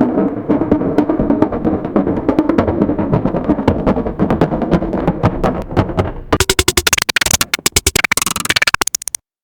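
AI-generated sound from the KinLab generator: a dense clattering texture of rapid clicks. About six seconds in it changes to a brighter, fast-stuttering hiss, then cuts off suddenly shortly before the end.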